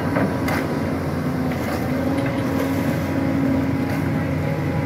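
Tracked excavator's diesel engine running steadily under load as its bucket works in a muddy trench, with a few short knocks in the first two seconds.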